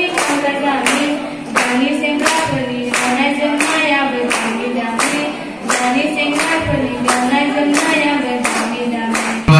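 Singing with steady rhythmic hand clapping in time, about two claps a second.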